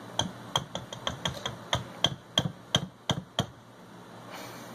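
Wire whisk knocking and clinking against a stainless steel mixing bowl as it works through thick chocolate batter, about three sharp clicks a second, with a pause near the end.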